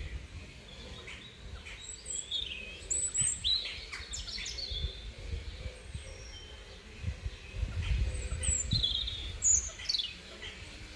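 Small birds chirping: short calls scattered throughout, several sweeping sharply downward in pitch. Under them is a low, uneven rumble on the microphone.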